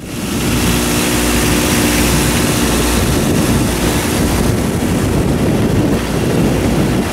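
Steady rush of wind and water on a sailboat under sail, with a low steady hum underneath.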